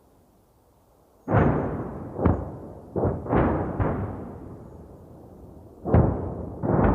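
Distant 105 mm artillery shells exploding: a string of booms, each trailing off in a long rumble. About five come in quick succession from a second in, and two more come near the end.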